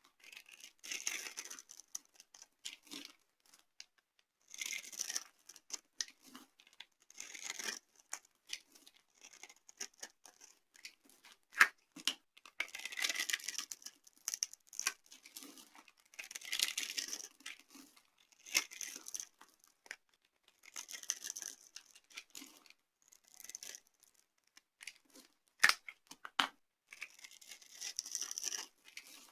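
Dry soap being crushed and broken apart by hand: a crisp, crumbling crunch in short bursts every couple of seconds, with two sharp snaps, one near the middle and one near the end.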